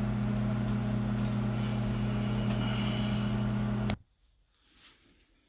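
Microwave oven running with a steady hum, cutting off suddenly about four seconds in as its cooking time ends.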